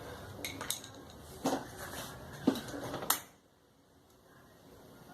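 Hard clinks and knocks of metal tools and parts being handled: a handful of separate strikes, the sharpest about two and a half and three seconds in, then quiet.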